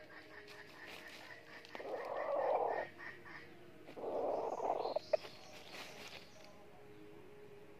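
Red junglefowl giving two rough calls, each about a second long, with a sharp click just after the second.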